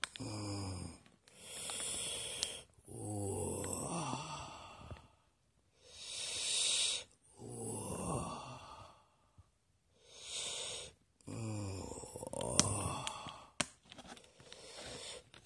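A man's voice moaning in long, falling tones, about four times, with a sharp hissing breath drawn between them: exaggerated mock-erotic moaning over the food.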